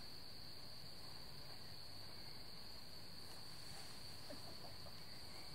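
Crickets trilling steadily in grass, one unbroken high-pitched tone at low level.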